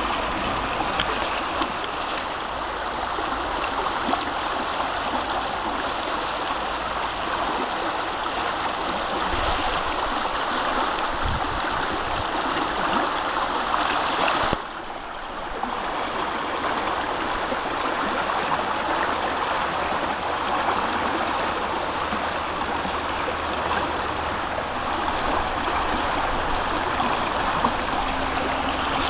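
River water running steadily over the riverbed, an even rushing noise that dips briefly about halfway through.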